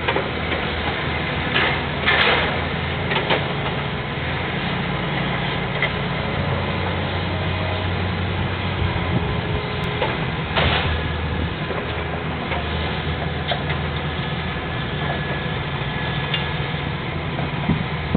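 An engine idling steadily with a low hum, with a few short knocks or clatters about two, three and ten seconds in.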